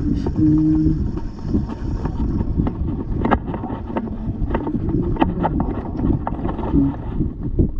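Wind buffeting the microphone in a loud low rumble, with many scattered sharp clicks through it.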